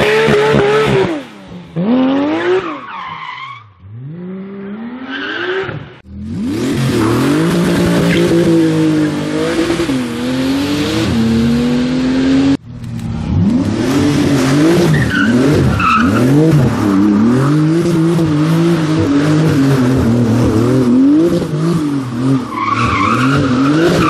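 Porsche 911 flat-six engines, a 991 GT3 and a 991 GT2 RS, revving hard and held high while the tyres skid and squeal through smoky donuts. The engine pitch rises and falls over a constant tyre hiss, with sharper squeals late on. The sound changes abruptly about six and twelve seconds in.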